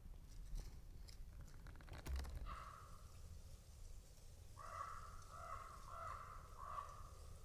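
A corvid calling: one caw about two and a half seconds in, then a run of four caws in quick succession.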